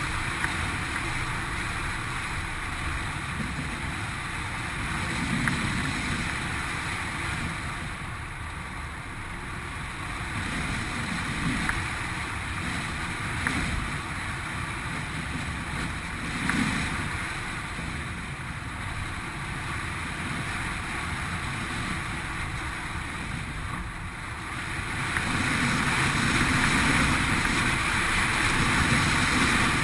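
Strong wind buffeting the microphone: a steady rushing noise that swells and eases, louder over the last few seconds.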